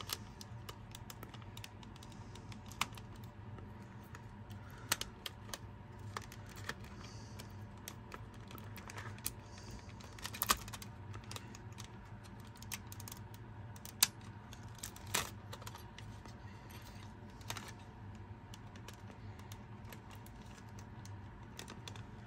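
Scattered small plastic clicks and taps from hands handling an opened Alba portable cassette player's case, batteries and tape mechanism, over a faint steady hum.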